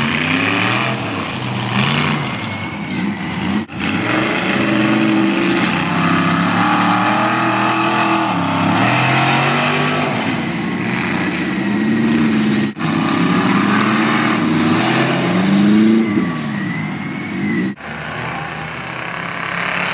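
Mud-bogging trucks' engines revving hard, rising and falling again and again as they push through a mud pit. The sound cuts off abruptly three times, and each time a new run starts.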